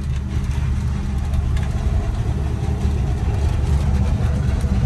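Truck engine running steadily with road noise, heard from inside the cab while driving along the highway; a low, even drone with no change in pace.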